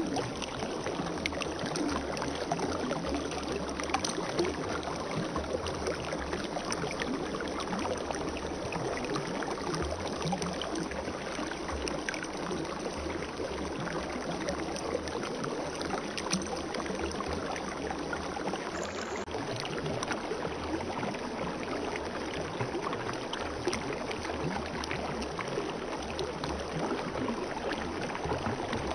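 Spring water running steadily: a continuous babbling trickle.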